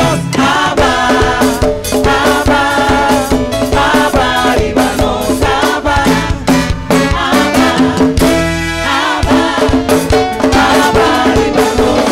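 Live Latin-style gospel praise music: several singers on microphones singing together over a band with drum kit, timbales, congas and keyboard, with a busy percussive beat. The bass drops out briefly about two-thirds of the way through.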